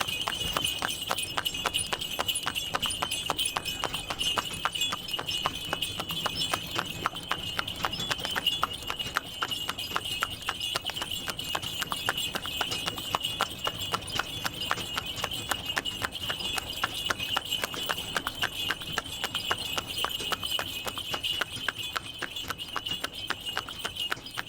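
Horse hooves clip-clopping in a steady, quick rhythm as a horse draws a tanga (two-wheeled horse cart), over a continuous high jingling.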